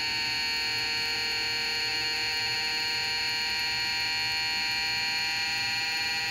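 3D-printed brushless DC motor spinning at speed on 20 volts, giving a steady high-pitched whine like a dentist drill. The whine holds several fixed pitches.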